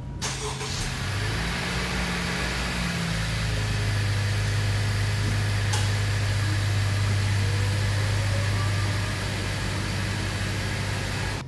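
Honda Civic 1.5-litre turbocharged four-cylinder engine starting up and idling, with its note settling to a steady idle about three seconds in. The engine is being run to circulate freshly added 0W-20 oil after an oil change.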